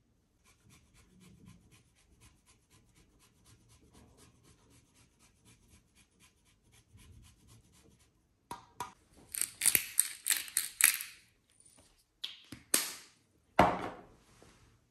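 Hard cheese grated on a flat rasp grater over a bowl of pasta: a run of quick, rough scraping strokes starting a little past halfway, then two more loud scrapes near the end. Before that, only a faint, regular ticking at about five a second.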